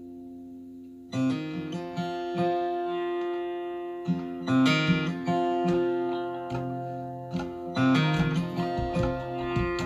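Recorded music played over a hi-fi system through a CAT SL1 vacuum-tube preamp fitted with 1967 Valvo tubes: soft held notes, then chords struck about a second in, again around four seconds and near eight seconds, each ringing on.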